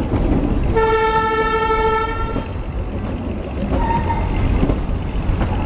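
Narrow-gauge train's horn sounding one steady toot of about a second and a half, over the rumble and clatter of the moving carriage.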